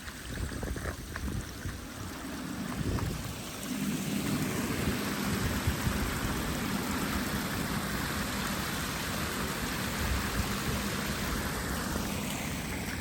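Rainwater runoff pouring down over rocks in a steady rush, growing louder about four seconds in, with heavy rain falling.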